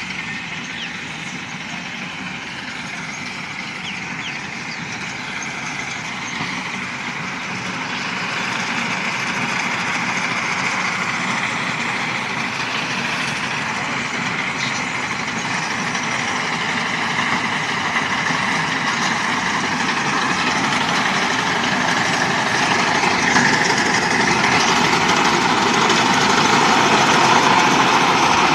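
New Holland self-propelled windrower running steadily as it mows, its engine and cutting header making one continuous machine noise that grows gradually louder as the machine comes closer.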